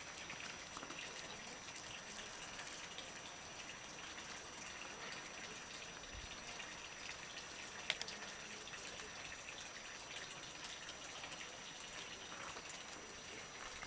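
Faint, steady trickle and splash of water running from a wooden spout into a hollowed-log trough fountain, with one sharp click a little over halfway through.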